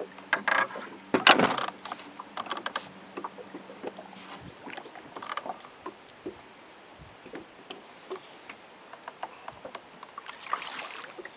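Loud knocks and clatter of gear being handled in a small fishing boat, with a low steady hum that stops about four and a half seconds in, then scattered light ticks.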